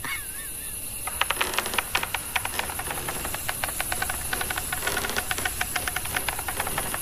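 Steady high hiss, joined about a second in by rapid, irregular clicking and crackling.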